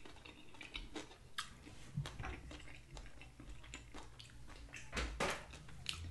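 Close-miked chewing and lip smacking from a man eating chicken wings, with scattered small wet clicks.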